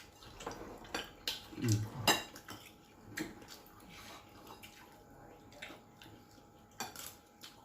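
Plates, bowls and utensils clinking and knocking at the table during a meal, as scattered separate clicks. A brief murmur of voice about two seconds in.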